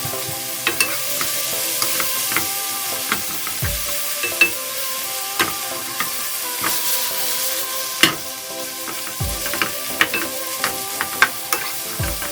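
Food sizzling as it is stir-fried in a hot pan, with a utensil clicking against the pan at irregular moments, roughly once or twice a second.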